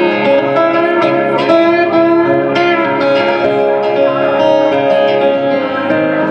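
Live guitar music: an instrumental passage of plucked, sustained guitar notes between the sung lines of a song.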